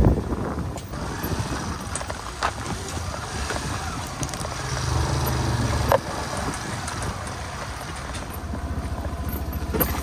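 Suzuki motor scooter's engine running while riding slowly on a rough gravel road, pulling harder for a second or so around the middle. Near the end it settles into an even, pulsing idle.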